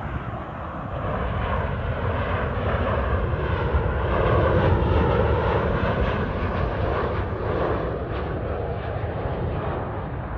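Southwest Airlines Boeing 737-700 on landing approach with gear down, its CFM56 jet engines passing low overhead. The engine noise grows to a peak about halfway through, then fades as the pitch of its tone drops going past.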